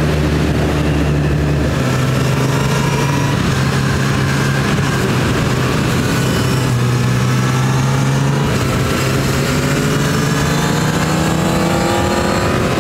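Motorcycle engine running under way, with wind rushing past. The engine note holds fairly steady, then climbs near the end as the bike accelerates.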